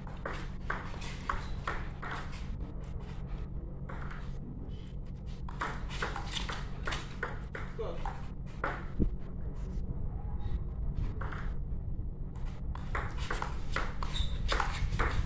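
Table tennis ball clicking off the paddles and bouncing on the table in quick runs of sharp ticks during rallies, with short breaks between points, over a steady low hum.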